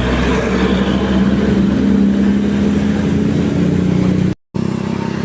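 A heavy bus engine droning steadily as the bus passes close by. The sound drops out completely for an instant near the end.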